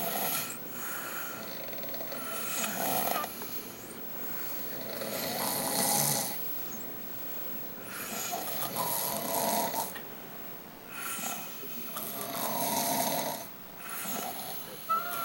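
Two sleepers snoring in turn, trading rasping snores, one every two to three seconds, with quieter breathing in the gaps.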